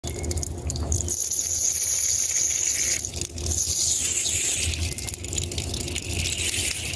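Sound effect of a person urinating on grass: a steady spattering, crackling hiss of liquid on grass. It cuts in suddenly.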